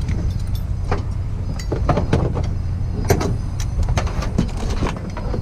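Knocks and clatters of a Schweizer 2-33 glider's hinged plexiglass canopy being handled and swung open, a few separate knocks a second or so apart, over a steady low rumble of wind on the microphone.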